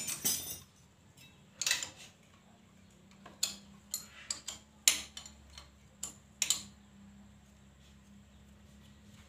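Hand tools clicking and clinking against a motorcycle engine as it is being dismantled: a dozen or so irregular, sharp metallic taps in the first two-thirds, the loudest about five seconds in.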